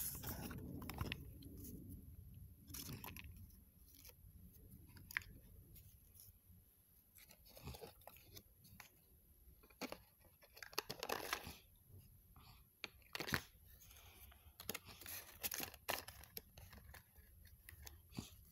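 Paper leaflets and a cardboard test-kit box being handled and put away, giving irregular rustles, crinkles and scrapes.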